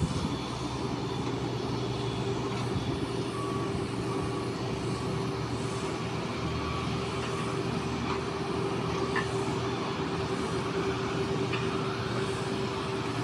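Steady mechanical drone of airport apron traffic, with aircraft and ground-service vehicle engines running and holding one steady tone. A faint, evenly repeating beep from a ground vehicle sounds for a few seconds mid-way.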